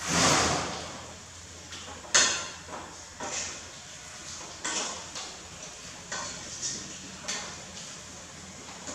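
Metal ladle knocking and scraping against the inside of a stainless steel pot of vegetables as it is stirred: a string of irregular clinks and scrapes, the loudest right at the start.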